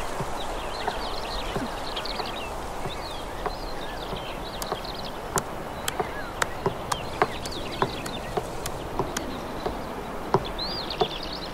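Small birds chirping and twittering over a steady outdoor background hiss. From about halfway a series of sharp taps joins in, coming more often toward the end.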